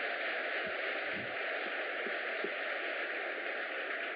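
Audience applause, a steady even clatter, heard through a poor, muffled recording.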